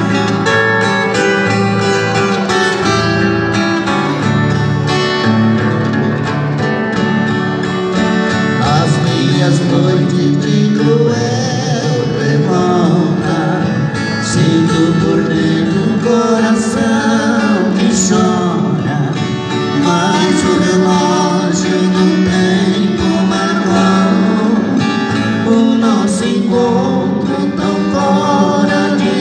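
Two acoustic guitars playing a country-style song, with two men singing together into the microphones from about eight seconds in.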